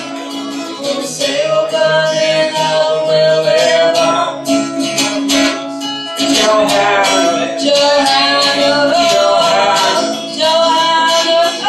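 Two acoustic guitars strummed in a steady rhythm while a woman and a man sing together, a live rock-and-roll/blues-style song.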